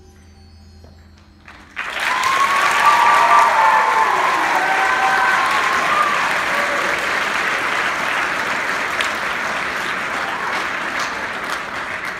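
Audience applause breaking out suddenly about two seconds in, as the last of the choir's music dies away, with a few shouted cheers in the first seconds of the clapping.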